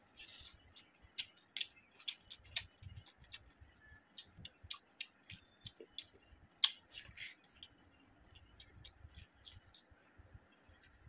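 Close-miked mouth sounds of a person eating rice and egg curry by hand: chewing with irregular wet clicks and lip smacks.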